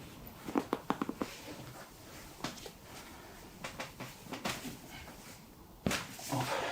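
Sharp clicks and knocks during a hands-on chiropractic adjustment of the hip: a quick run of about five clicks about half a second in, a few scattered clicks after, and a louder knock near the end.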